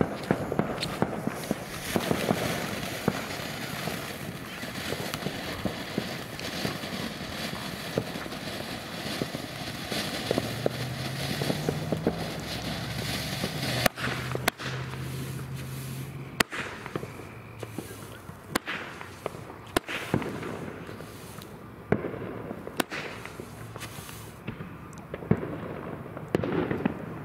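Dominator Bunker Buster 7-shot hybrid firework cake going off. A fountain hisses steadily for about the first fourteen seconds, then the shots fire one after another as sharp bangs, a second or more apart.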